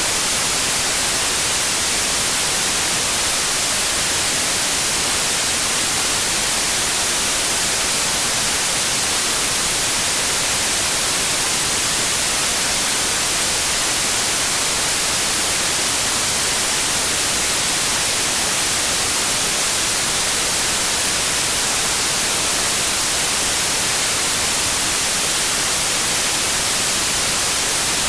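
Continuous white noise: a steady, even hiss with no change.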